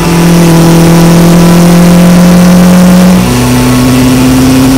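Honda CB750 K1's air-cooled inline-four running under load as the bike accelerates along the road. Its note climbs steadily, drops once about three seconds in as it shifts up a gear, then climbs again.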